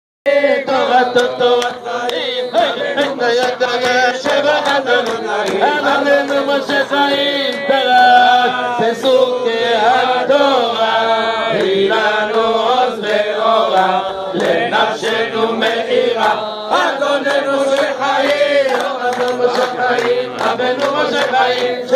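A group of men singing a Hebrew hymn together, a steady melodic chant without pause.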